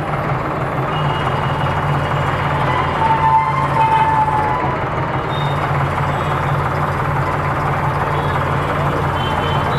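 Tractor diesel engine running steadily while it powers the hydraulics of a homemade backhoe attachment as the boom and bucket are raised, with a brief high whine about three to four seconds in.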